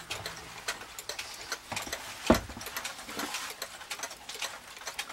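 Several mechanical wall clocks ticking at once, among them an East German cuckoo clock with a swinging pendulum, their ticks overlapping in an uneven patter. A single dull thump a little over two seconds in is the loudest sound.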